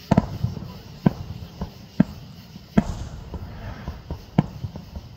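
Aerial firework shells bursting: a string of sharp bangs, roughly one a second, with fainter pops and crackle between them.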